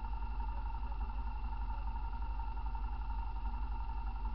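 Off-road vehicle engine idling steadily, with a constant low pulsing and a steady hum.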